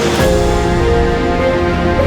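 Background music with sustained tones; just after the start a deep bass comes in and a hissing high layer drops away.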